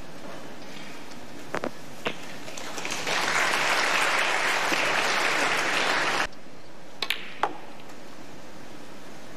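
Snooker balls clicking as the cue ball is struck and hits the black, then audience applause for about three seconds, cut off suddenly; a few more sharp ball clicks follow near the end.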